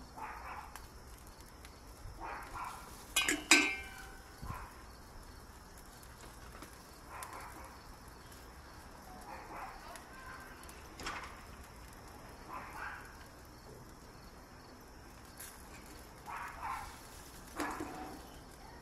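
Metal tongs clinking against a gas grill's grate and a steel bowl as chicken wings are turned, with one louder, ringing clink about three and a half seconds in.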